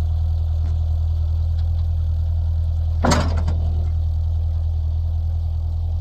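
An engine running steadily at low speed, with one sharp metallic clank about three seconds in.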